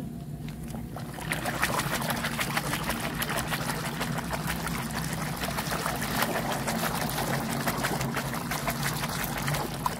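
Soapy water in a plastic basin sloshing and splashing as a hand scrubs a toy airplane under the suds, a dense patter of small splashes from about a second in.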